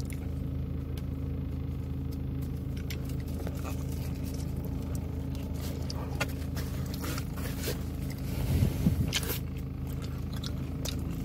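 Steady low hum of a car's engine idling, heard inside the cabin. Small clicks and scrapes of pizza being handled from the box are heard over it, with a louder rustle about eight and a half seconds in.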